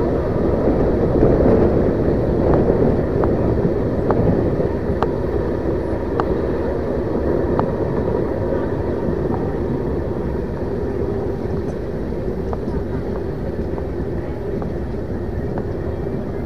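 Steady running rumble of a moving Indian Railways express coach, heard at its open doorway, with occasional sharp clicks from the wheels passing over rail joints.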